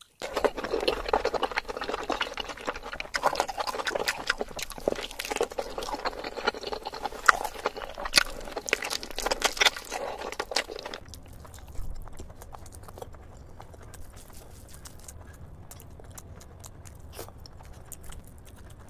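Close-miked eating of mutton curry and rice: wet chewing, lip smacks and sharp mouth clicks, dense and loud at first. About eleven seconds in it becomes quieter and sparser, with a low steady hum underneath.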